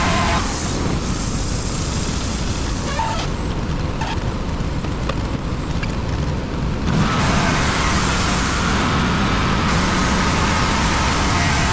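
WoodMizer LT35 band sawmill running steadily while sawing hemlock. A higher whine sits over the engine at the very start and again from about seven seconds on, with a duller stretch in between.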